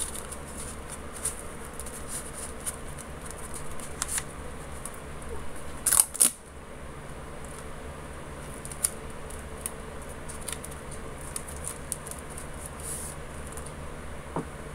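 Sheet of paper being rolled by hand into a thin tube: faint rustling and small ticks, with two sharp clicks about six seconds in, over a steady low hum.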